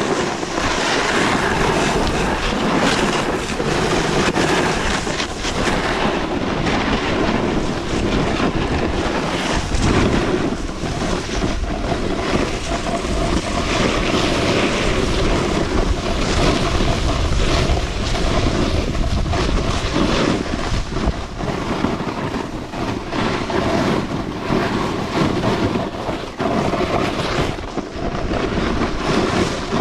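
Wind buffeting the microphone while snowboarding downhill, with the board's edge scraping over hard snow and ice in uneven rushes.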